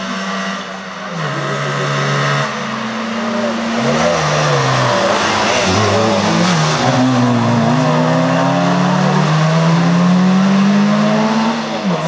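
Rally car engines revving hard, their pitch climbing and dropping again and again through gear changes and lifts, getting louder as the cars come close and pass; more than one engine is heard at times.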